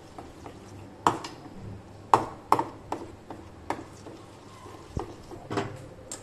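A steel spoon stirring thick pumpkin purée in a stainless-steel bowl, clinking against the bowl in a string of irregular taps with short metallic rings.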